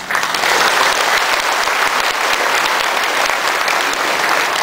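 Audience applauding: many hands clapping together, starting suddenly and holding steady.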